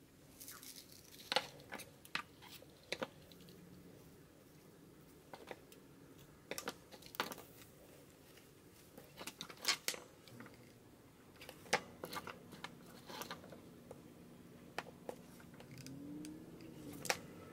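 Hands handling tulle and satin ribbon and moving craft tools (scissors, a hot glue gun) on a tabletop: scattered soft clicks, taps and rustles, a few sharper taps among them.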